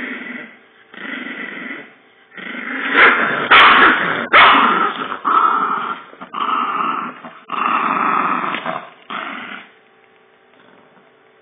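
Yorkshire terrier growling in repeated rough bouts of about a second each while clamping a wad of paper in its mouth, angrily refusing to let go. The bouts are loudest a few seconds in and stop about ten seconds in.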